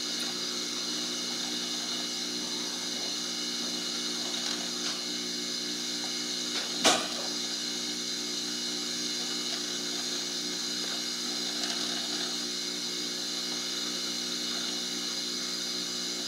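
Aoyue soldering smoke absorber's fan running steadily, a hum with a high whine over it. A single sharp click about seven seconds in.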